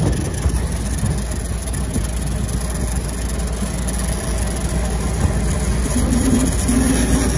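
Old military jeep driving along, its engine running steadily under road and wind noise as heard from inside the vehicle. A low steady tone joins in about six seconds in.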